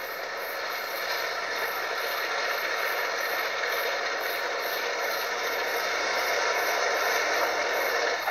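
Moving train's running noise heard from on board, a steady, even noise that grows slowly louder.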